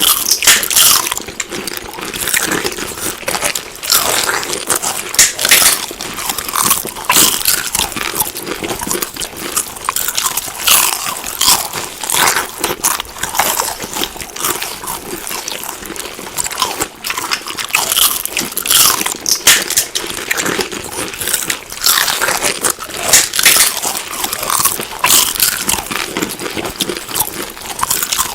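Close-up chewing of crunchy food: a continuous run of crisp, irregular crunches as it is bitten and chewed.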